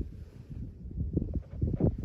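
Irregular low bumps and brief rustles of hands handling toy packaging close to the microphone, with a louder knock near the end.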